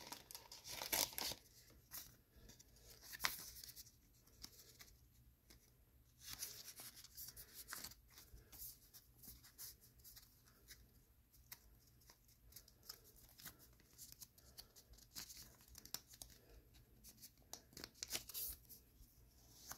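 Faint rustling and scattered soft crackles as a Pokémon trading card is handled by hand.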